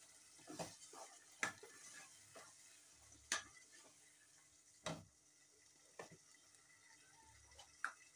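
A spatula stirring sauce in a metal saucepan, knocking and scraping against the pot in about seven sharp, separate taps.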